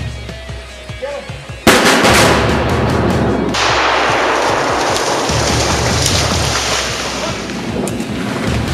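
Hard rock music with a sudden loud shotgun blast about one and a half seconds in, followed by several seconds of dense, noisy sound.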